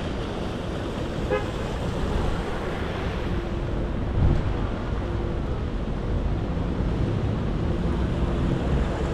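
City traffic rumble mixed with the engine of a canal tour boat passing beneath the bridge, with a brief horn toot about a second and a half in.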